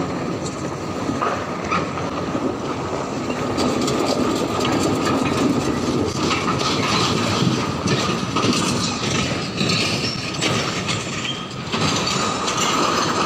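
Tractor engine running as it tows a two-axle trailer loaded with steel sections, the load and trailer rattling and clanking over rough ground.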